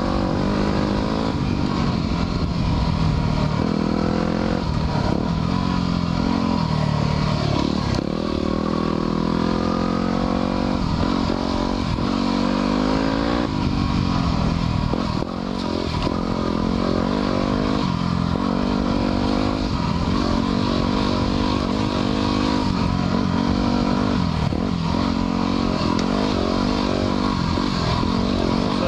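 2010 Yamaha WR250R's 250 cc single-cylinder four-stroke engine running under way, its revs rising and falling as the throttle is worked, with a short drop in revs about halfway through.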